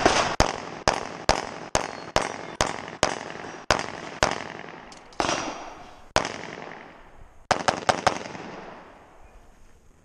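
STI Edge pistol fired in rapid strings during an IPSC stage. Shots come about two a second for the first four seconds, then singly a second apart, then a fast burst of about five near the eight-second mark. Each shot leaves a short echo off the range walls.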